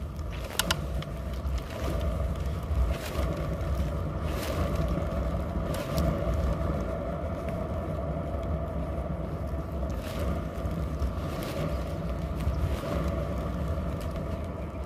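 Kick scooter's small wheels rolling over an asphalt path: a steady rumble with a hum through it, broken now and then by short sharp clicks.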